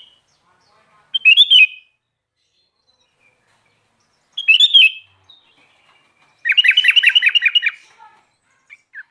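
Sooty-headed bulbul singing: two short, loud warbled phrases, then a fast, rapid trill of about nine notes a second near the end.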